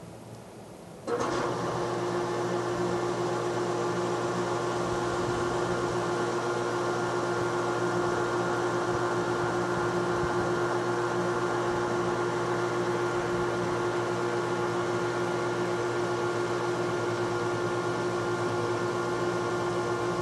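A machine's motor hum with a steady pitch, switching on abruptly about a second in, running at an even level and cutting off suddenly near the end.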